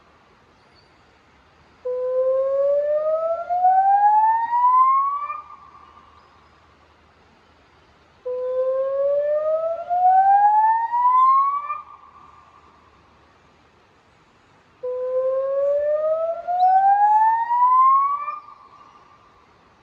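Electronic river warning siren sounding through Bosch LBC-3406 loudspeakers in a warning activation: three rising whoops, each climbing steadily in pitch for about three and a half seconds, holding briefly at the top and then trailing off in an echo. There are gaps of about three seconds between the whoops.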